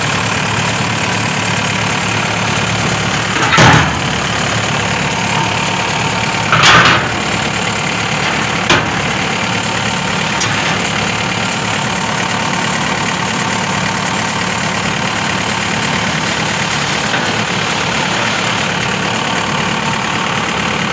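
A diesel engine idling steadily, with three sharp metal clangs in the first half as heavy steel loading ramps are moved into place.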